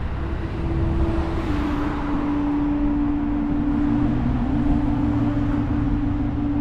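Violin and flute playing improvised long, held notes; one sustained note steps down a little about a second and a half in. A steady low rumble lies underneath.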